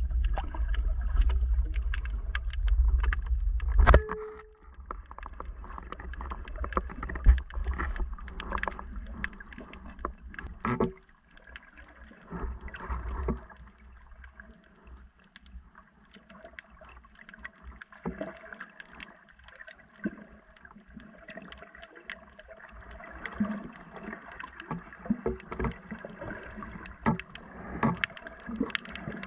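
Muffled underwater sound heard through a submerged camera: a heavy low rumble for the first few seconds that ends with a sharp knock, then a faint crackle of scattered clicks and ticks in the water.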